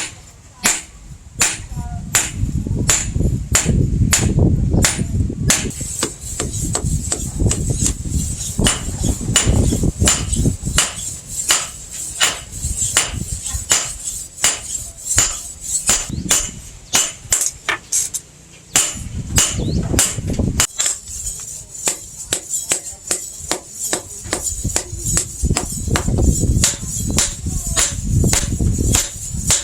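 Hand hammer blows on an anvil, roughly two a second with brief pauses, forging coil spring steel into a blade.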